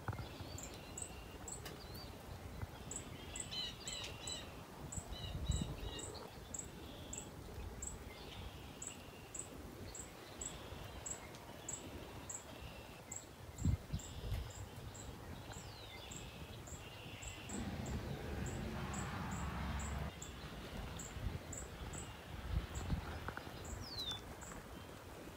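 Birds calling, including two falling whistles, over an insect's high, even chirp repeating about three times a second. A few low thumps and crunches of footsteps on fallen plaster and lath debris, most around the middle and later part.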